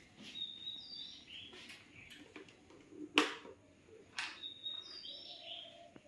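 White Indian ringneck parakeet making short, high chirps in two brief bouts, with one sharp click about three seconds in.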